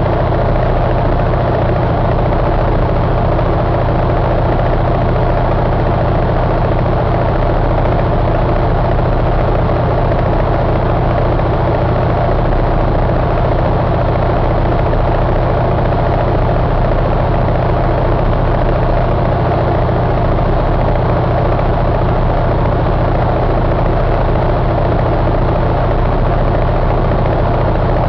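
Detroit DD15 inline-six diesel engine idling steadily at a constant speed, with no revving.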